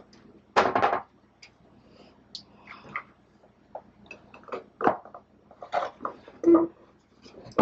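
Scattered knocks, clicks and rustles of painting supplies being handled and set down on a work table, with one louder noise about half a second in.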